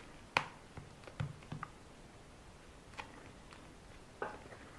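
A few scattered light clicks and taps of small objects being handled by hand, the sharpest about half a second in, with a small cluster of knocks around a second and a half in.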